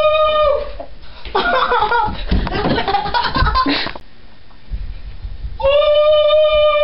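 Boys laughing and shouting excitedly, with a long held high "woo" call like a train whistle that ends about half a second in, and a second held "woo" near the end.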